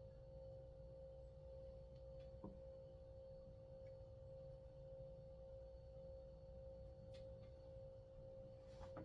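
Near silence: a steady faint hum on one pitch, with a few faint clicks of small starter parts being handled, about two and a half seconds in and twice near the end.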